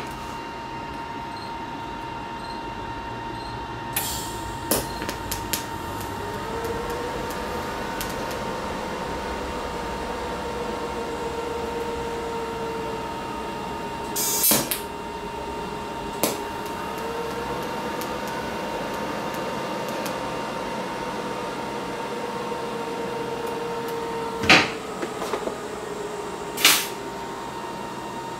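TIG welding on a steel hydraulic line with an HTP Invertig 221 inverter welder: sharp crackles of the arc starting, then two stretches of steady arc, about seven and ten seconds long, each carrying a tone that rises and then slowly sags, over a steady high whine.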